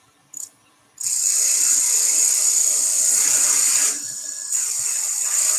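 Thin steel held by hand against a small tulipwood piece spinning on a woodturning lathe: a steady, high-pitched scraping hiss that starts abruptly about a second in. It eases off briefly around four seconds in and then comes back as the steel is pressed on again.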